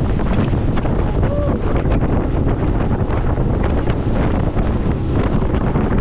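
Heavy wind buffeting the microphone of a camera on the bow of a bass boat running across choppy lake water, a loud steady roar with the splash and slap of spray and waves against the hull.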